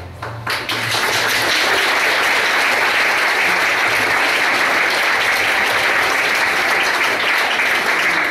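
Audience applauding. The clapping starts about half a second in as the last held note of the music dies away.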